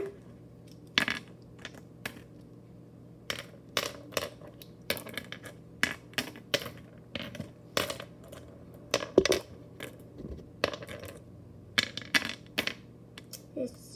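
Flat glass mancala stones dropped one by one into the pits of a wooden board, a quick irregular run of sharp clicks as they land and knock against the wood and each other.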